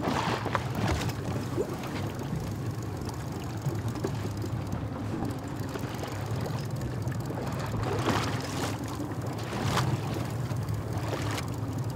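Boat engine idling steadily under wind and water noise, with a few short knocks now and then.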